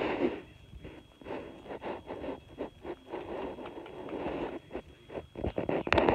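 Rustling and scraping as a long-haired cat's fur brushes and presses against the phone's microphone, in uneven patches. A few sharp handling clicks come near the end.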